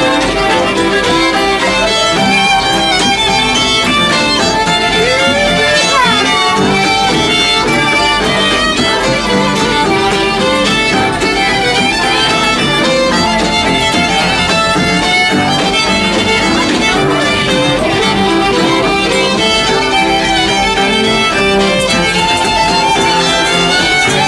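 Fiddle playing a folk tune with acoustic guitar strumming along, continuous live acoustic music.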